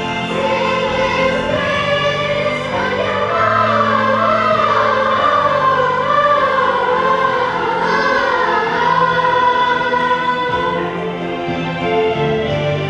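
Children's choir singing a song with instrumental accompaniment, the sung melody wavering above sustained low notes.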